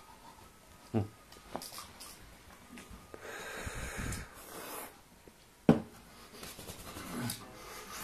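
Handling knocks and a sharp thump as a man moves about, with a long breathy sound in the middle.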